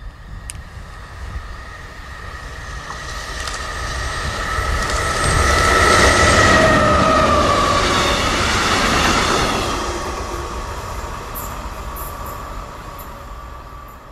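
A freight train of empty stanchion flat wagons passing on the rails: a rumble that builds to its loudest about six to nine seconds in, then fades away, with a high squealing tone over it that dips slightly in pitch as the train goes by.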